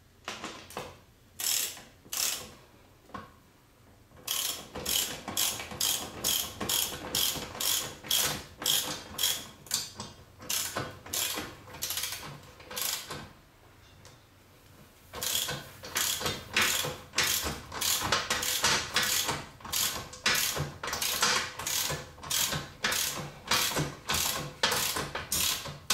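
Socket wrench ratcheting in repeated strokes, about two a second, as a mounting bolt is driven up into the ceiling. The strokes come in two long runs with a short pause between them.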